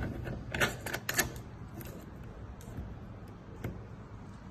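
Light clicks and taps of a crystal wall lamp's metal fittings and cut-glass parts being handled and fitted together: a quick cluster in the first second or so, then a few scattered clicks.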